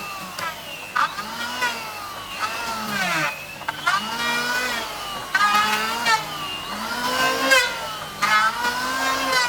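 A motor-driven tool whose pitch rises and falls about once a second, with sharp clicks between the swells.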